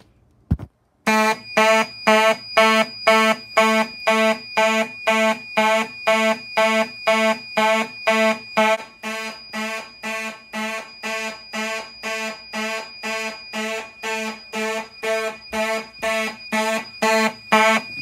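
A Simplex pull station clicks as it is pulled. About a second later two 1990s Simplex 2901-9838 mechanical horns start buzzing together in march time, rapid pulses about two to three a second, with a steady high whine underneath.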